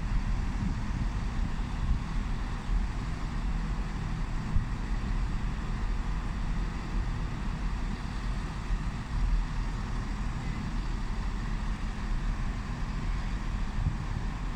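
Diesel engines of a CrossCountry Class 170 Turbostar diesel multiple unit running steadily at the platform, a low, even rumble while the train waits to depart.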